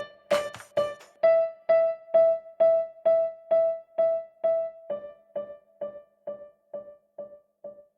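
Song outro. The drums drop out about a second in, leaving a single keyboard note with a piano-like tone that repeats about twice a second and fades away.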